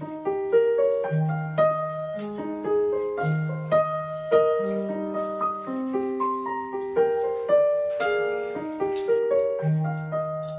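Background piano music: a run of single struck notes and chords, each fading after it is struck.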